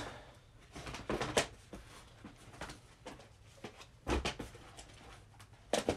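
Plastic DVD and Blu-ray cases being handled and stacked, knocking and clattering together in three short bursts.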